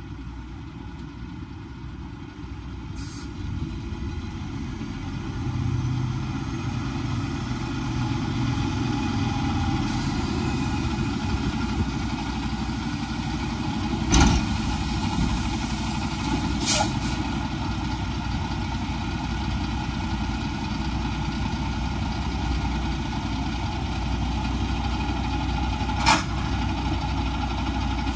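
Semi tractor's diesel engine idling as it backs under a trailer, growing louder as it closes in. About halfway through comes a sharp clunk as the fifth wheel meets the trailer's kingpin, a second clunk a few seconds later, and another brief sharp sound near the end.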